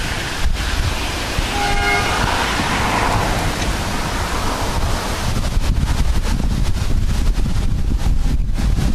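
A railway horn gives one short toot about two seconds in, over steady wind buffeting the microphone.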